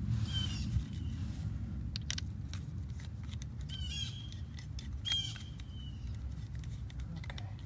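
Birds calling, three short harsh calls about half a second in, at about four seconds and at about five seconds, over a steady low rumble. A few light clicks come from a small screwdriver prying at a plastic tire pressure sensor.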